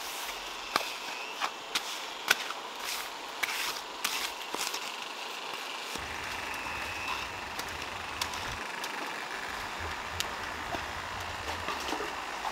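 Plastering trowel scraping and smoothing wet cement, with irregular sharp taps and scrapes.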